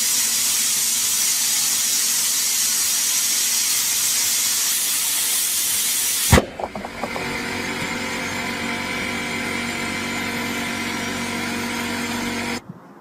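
Loud, steady rush of compressed air into a tire as the bead is being seated. About six seconds in there is a single sharp bang, after which the air keeps hissing with a steady hum until it cuts off abruptly near the end.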